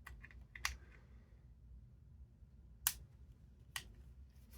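Small sharp plastic clicks and snaps as a pry tool works at the clips of a 1st gen iPod Nano's casing: about four clicks, the loudest about three seconds in.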